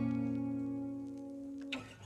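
Background music: a strummed acoustic guitar chord ringing out and slowly fading, with a light strum near the end before the next chord.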